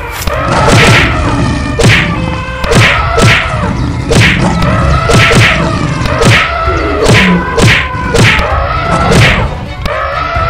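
Cartoon fight sound effects: a fast string of about a dozen whacks and thuds, one or two a second, over background music.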